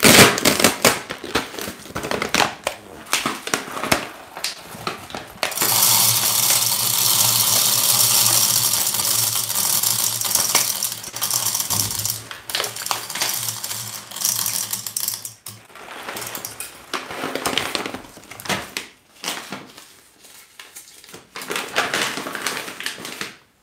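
Coffee beans poured from a bag into the bean hopper of a DeLonghi La Specialista Arte espresso machine's built-in grinder. A dense rattling stream of beans runs for about ten seconds, with bag rustling and scattered clicks before and after it.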